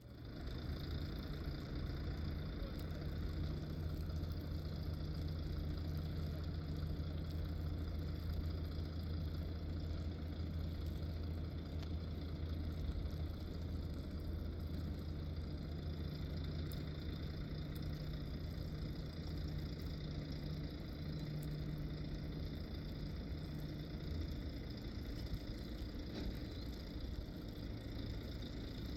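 An engine running steadily at low speed, with a constant low hum.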